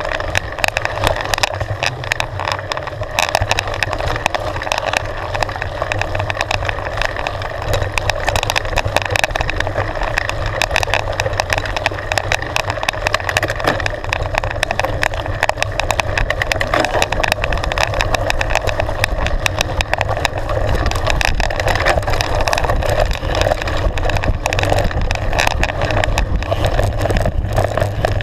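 Mountain bike ridden along a gravel forest trail, heard from a camera mounted on the bike: a steady rush of tyre and wind noise over the mic, with constant rattling and clicking from the bike jolting over the rough surface, growing louder and rougher in the last third as the trail gets faster.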